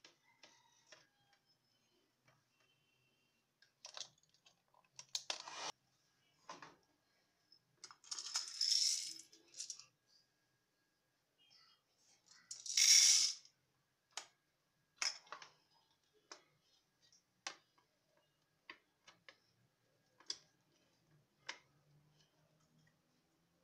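Dry popcorn kernels rattling as they are poured into the chamber of a Mediatech hot-air popcorn maker, in two bursts a few seconds apart, the second the loudest. Around them come light plastic clicks and knocks from the cup, cord and clear dome lid being handled.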